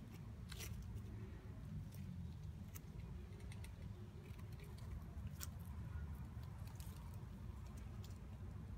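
Quiet outdoor ambience: a steady low rumble with a few faint, scattered ticks and light rustles.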